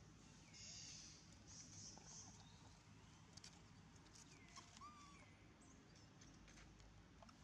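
Faint outdoor ambience: soft high rustling, a few light clicks, and a few short high chirping calls about two-thirds of the way through.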